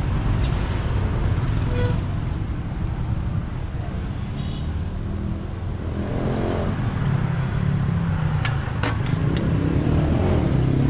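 Road traffic: motorbike and car engines passing with a steady low rumble, one engine swelling about six seconds in and another near the end. A few sharp clicks come briefly about eight and a half seconds in.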